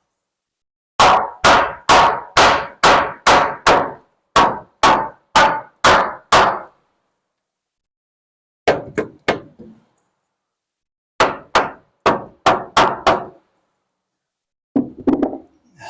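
Hammer driving nails into wooden wall framing: a run of about a dozen strikes at about two a second, then shorter runs of blows after pauses.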